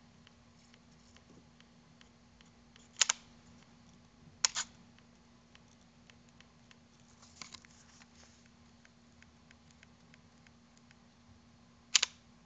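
Panasonic GH2's lens autofocus motor clicking as it focuses: short double clicks about three seconds in, again about a second and a half later, a fainter one midway and a sharp one near the end, over faint ticking and a steady low hum.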